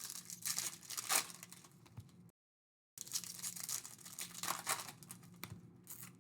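Plastic wrapping of trading-card boxes and packs being torn and crinkled by hand, in irregular rustling strokes. The sound drops out entirely for about half a second around two seconds in.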